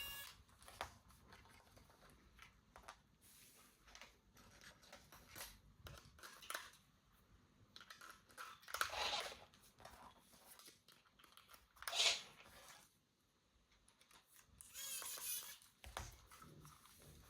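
Toy packaging being handled and opened: scattered clicks and light rustles of plastic and cardboard, with a few louder tearing or crinkling bursts, the loudest about twelve seconds in.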